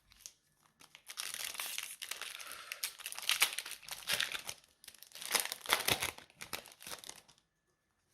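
Foil Pokémon booster pack wrapper crinkling and tearing as it is opened by hand. The crackling comes in several louder bursts and stops shortly before the end.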